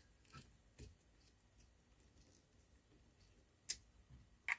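A few faint clicks and taps of a screw and screwdriver being handled on an old light switch as a screw is fitted to its hole, with one sharper click near the end.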